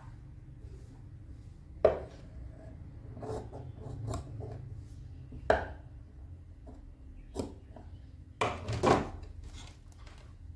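Large steel tailor's shears cutting cotton cloth: a few sharp clicks of the blades snapping shut, about two, five and a half and seven and a half seconds in, with fabric rubbing between them. A louder cluster of knocks and clatter comes near the end.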